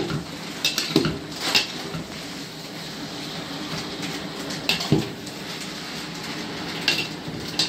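Metal spatula and spoon clanking and scraping against a large metal kadhai while chowmein noodles are tossed and mixed. The clanks are irregular: a few in the first two seconds, then more around five and seven seconds in.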